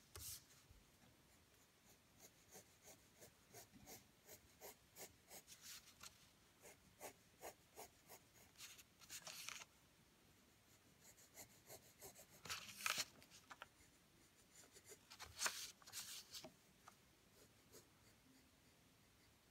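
Wooden graphite pencil scratching across paper as drawing lines are traced over, faint, in runs of quick short strokes separated by pauses.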